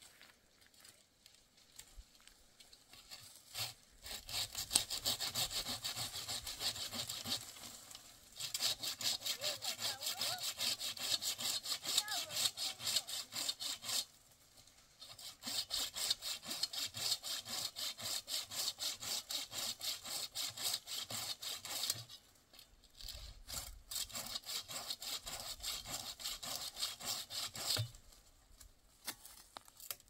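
Hand saw cutting a tree branch in steady back-and-forth strokes, about three a second, in four long bouts with short pauses between.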